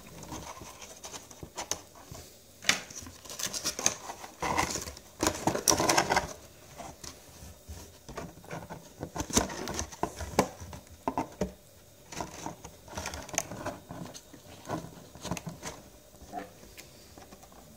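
Clear plastic bag crinkling and crackling as it is handled by hand, in irregular crackles, loudest about five to six seconds in and thinning out near the end.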